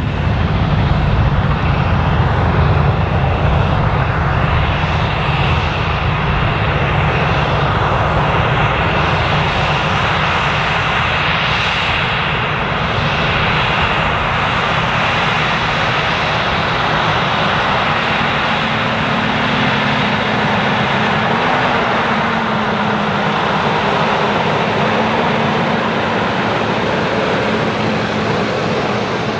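Versatile 620 DeltaTrack tracked tractor's diesel engine running steadily under load while it pulls a high-speed disc through corn stalks. The engine drone sits under a steady rushing noise from the disc working the soil.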